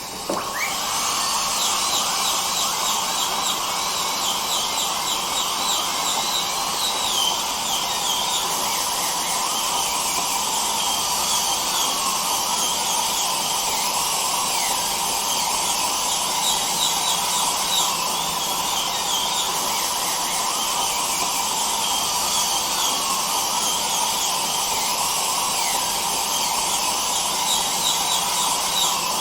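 A dental drill whining steadily, with the hiss of a dental suction running underneath. The drill's high pitch wavers slightly throughout.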